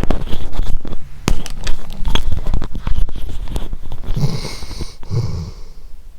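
A sleeping dog snoring: two snoring breaths about four and five seconds in. Before them comes a run of sharp clicks and knocks, the loudest part.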